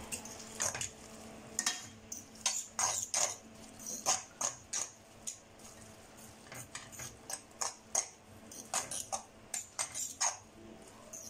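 A utensil scraping and clinking against a stainless steel pan as spaghetti is tossed in olive oil. The strokes come short and irregular, a few a second. This is the pasta being worked into a thick oil emulsion.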